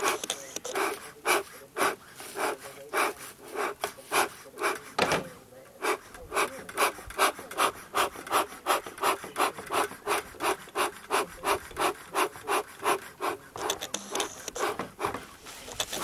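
Beekeeper's smoker bellows pumped by hand in a quick, even rhythm of about three breathy puffs a second, fanning the freshly lit fuel to get it smoking. The pumping is slower and uneven for the first few seconds, then steadies.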